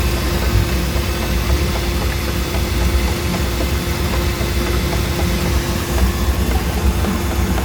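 Mercruiser 4.3 V6 marine engine idling steadily with a knocking noise.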